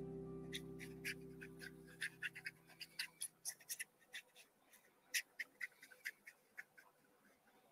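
Flat paintbrush dabbing and scratching acrylic paint onto watercolor paper in quick, irregular strokes, while a held background-music chord fades out over the first few seconds.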